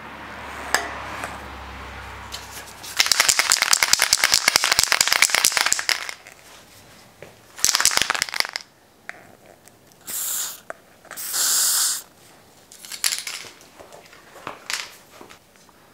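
Spray.Bike aerosol paint can being shaken, its mixing ball rattling rapidly for about three seconds and again briefly. It is followed by short hissing sprays of paint: two of about a second each, then a few shorter puffs.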